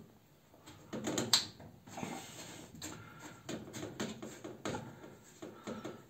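Handling noises of a plastic water inlet hose coupling being hand-tightened onto a washing machine's inlet valve: scattered clicks, light knocks and rubbing, the sharpest click about a second and a half in.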